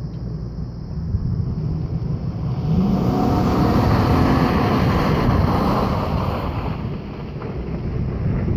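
A motor vehicle goes by, its engine and tyre noise swelling to a peak in the middle and fading again, with the engine's pitch rising briefly as it comes up; wind rumbles on the microphone throughout.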